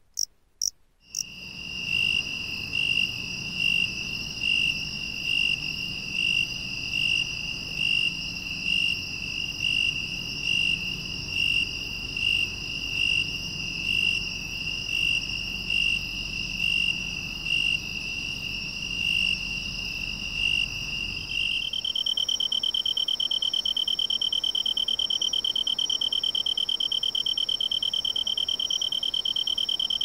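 A few sharp chirps of a three-horned cricket (Loxoblemmus doenitzi) in the first second. Then a broad-winged tree cricket (Oecanthus euryelytra) trills continuously, swelling about once a second. About 22 seconds in, it gives way to a kantan tree cricket (Oecanthus longicauda) with a slightly higher, steady, unbroken trill.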